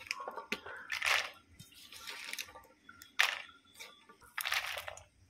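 Handfuls of cut broad bean pieces dropped into a nonstick pan: three short rustling clatters with small clicks of pieces landing between them.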